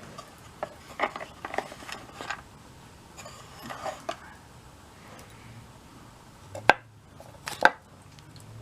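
Small metal hand tools and bit holders being handled and set down, clicking and knocking against each other and a hard surface: a scatter of light knocks, then two sharp clicks about a second apart near the end.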